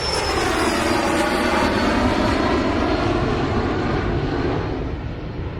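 Aircraft passing by: a loud, steady engine rush with a high whistling whine that falls slowly in pitch, easing off near the end.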